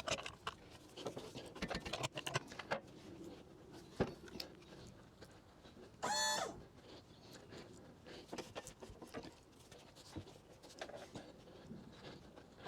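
Scattered light clicks and knocks, with one short high-pitched squeak about six seconds in and a fainter one near eleven seconds.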